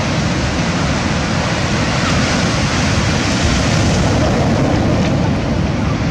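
Surf breaking and washing onto a pebble beach: a steady, loud rushing of waves.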